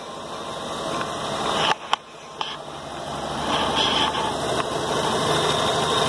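Volkswagen Gol engine idling with one spark plug lead disconnected, so one cylinder is misfiring. It grows louder over the first few seconds, with a couple of sharp knocks about two seconds in.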